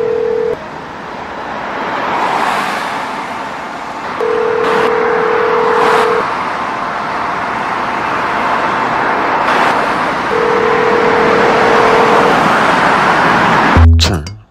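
Telephone ringback tone, a steady tone about two seconds on and four off, heard twice over the noise of city traffic swelling and fading. A beat with heavy bass starts near the end.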